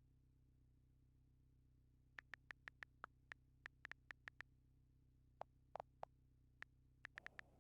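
Near silence over a faint steady low hum, with a run of small, sharp, irregular clicks starting about two seconds in.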